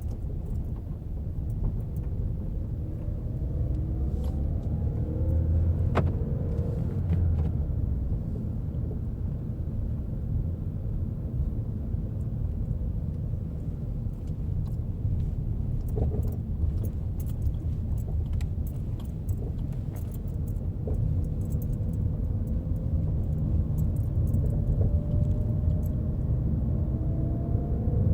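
A 2014 Ford Fusion driving on a rough road: a steady low road rumble, with frequent light clicks and knocks from the front passenger-side strut. The strut was faulty, and the noise went away once it was replaced.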